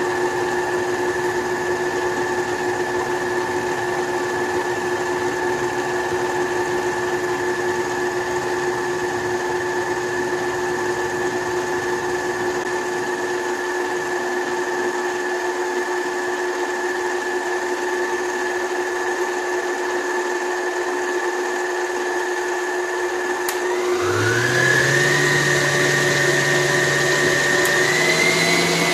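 Electric stand mixer's motor running with a steady whine as its beater mixes flour and dry dough ingredients. About 24 seconds in, the whine rises in pitch as the speed is turned up, stepping up again slightly near the end.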